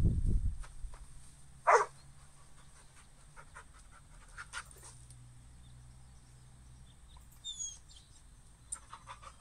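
Labrador retriever sound from an augmented-reality 3D dog: a deep woof right at the start, then a single sharp bark about a second and a half later, followed by faint clicks.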